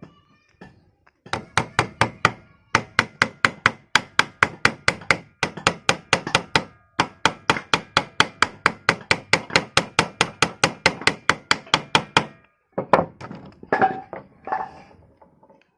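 Rapid, regular hammer blows, about four a second, with a brief pause about seven seconds in, followed by a few scattered knocks near the end.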